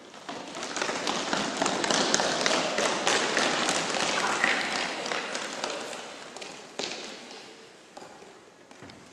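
Crowd noise of many quick claps and taps with voices mixed in, swelling over the first two seconds and dying away over the last three.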